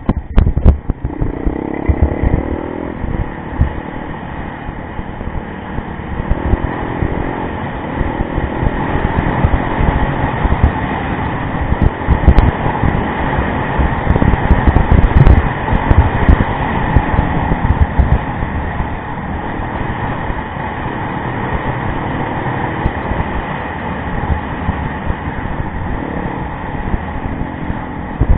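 Yamaha rally motorcycle's engine running under changing throttle, its pitch rising and falling, over a muddy, rough track. Frequent low thumps and buffeting run through it.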